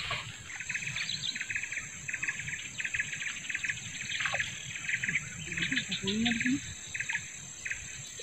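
Insects trilling at the water's edge: a steady high-pitched drone, over which runs a series of short, rapid chirping bursts repeating two or three times a second.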